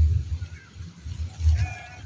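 A short animal call with a bleat-like ring, about one and a half seconds in, over an uneven low rumble.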